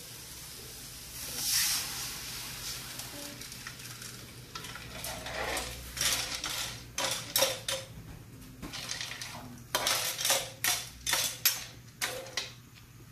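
A metal spatula stirring shellfish in a wok, scraping and clinking against the pan and the shells in a run of short strokes. About a second and a half in there is a brief hiss as water is poured onto the hot wok.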